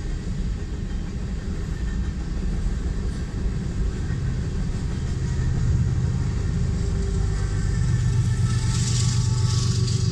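Freight train rolling through a grade crossing, heard from inside a car: a steady low rumble of the freight cars on the rails. It grows louder near the end, with a low hum and hiss, as a diesel locomotive at the tail of the train goes by.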